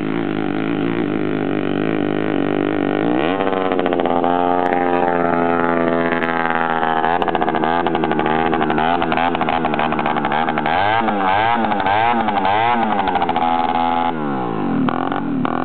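Jawa 21 moped's 50 cc two-stroke single-cylinder engine running with no exhaust silencer, only the open header pipe. The revs climb sharply about three seconds in, swing quickly up and down several times later on, drop near the end and pick up again.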